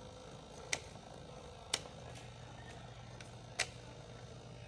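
Three sharp clicks from hand work with wires and tools at a small motor's terminals, the first two a second apart and the third about two seconds later, over a faint steady hum.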